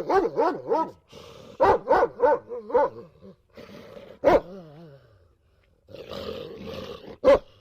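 Dog vocalising in clusters of short yowls and barks that bend up and down in pitch, with a longer wavering cry that falls away about four seconds in and one sharp bark near the end.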